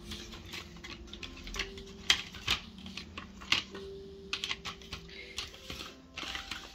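Cardboard jigsaw puzzle pieces being handled and set down on a wooden floor: a run of irregular light clicks and taps, the sharpest about two to three and a half seconds in.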